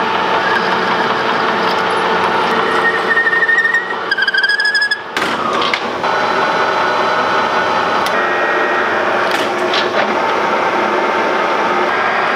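Metal lathe running, turning silicon bronze rod. A high whine from the cut rises about three seconds in, and the sound changes abruptly about five seconds in before the machine runs on steadily.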